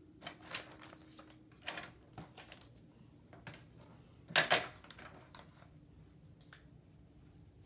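Scattered rustles and light clicks of paper sheets being handled on a plastic toy easel, the loudest a brief rustle about four and a half seconds in.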